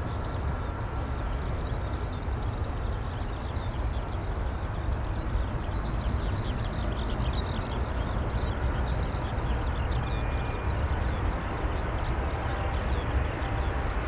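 Jet noise from a Boeing 737-800's CFM56 engines on final approach: a low rumble that grows gradually louder as the airliner nears. Quick high chirps sound over it.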